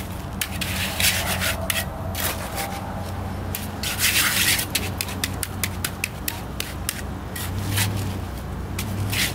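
Hand trowel scraping and smoothing wet concrete at the top of a round footing form: a run of short, gritty scrapes, with one longer scrape about four seconds in.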